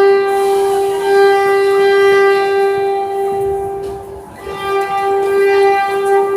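Seoul Subway Line 2 train horn sounding one long steady tone, dipping briefly about four seconds in and then sounding again a little unevenly.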